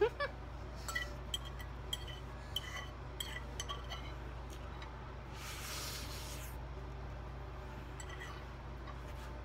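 Metal fork clinking on a ceramic plate, a run of short clinks in the first four seconds, then a longer scrape across the plate about five and a half seconds in.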